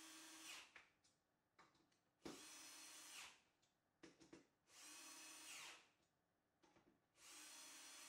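Cordless drill-driver running in short runs of about a second each, four times, driving screws into the standing desk's leg. Small clicks come between the runs.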